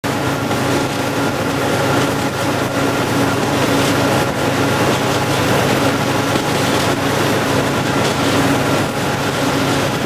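Kenya Railways diesel locomotive running under load as it hauls a long train, heard close up from alongside its body: a steady engine drone under a constant rush of running noise.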